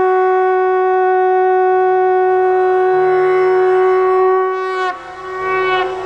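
Conch shell (shankha) blown in one long steady blast whose pitch sags and breaks about five seconds in, followed by a short second blast.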